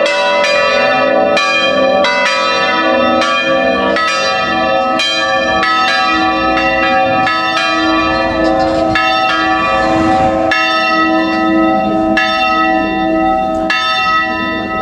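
Several swinging church bells of an electrified five-bell peal in A (La3) ring together, each stroke landing about once or twice a second and the tones overlapping. Near the end the strokes stop and the bells ring on and fade.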